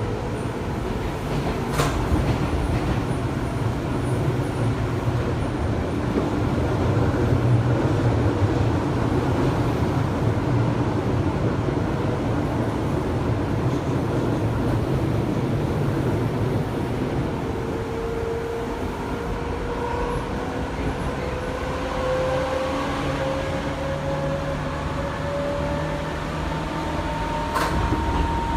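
Seibu Tamagawa Line electric train heard on board while running: a steady low rumble of wheels on rail. Two sharp clicks come about two seconds in and again just before the end. Over the last third a whine rises slowly in pitch.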